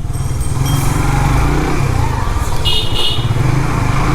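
Motorcycle engine running steadily while riding through city traffic. About three seconds in, a horn gives two short high beeps.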